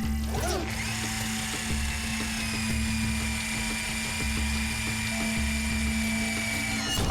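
Cartoon soundtrack: background music with a pulsing bass and a steady low droning note. Over it, a high, steady, machine-like whine comes in about half a second in and cuts off near the end.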